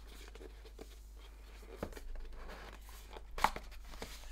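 Cardboard smartphone box being handled and its lid slid off: a soft rustle of cardboard with a few light taps, the sharpest about three and a half seconds in.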